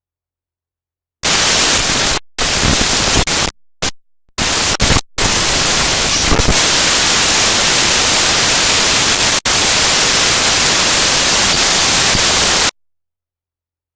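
Raw computer data played back as audio: loud, harsh static that switches on and off abruptly, with dead silence between blocks. It starts about a second in, breaks into several short blocks with sudden gaps, then runs as one long stretch of about seven seconds that cuts off suddenly near the end.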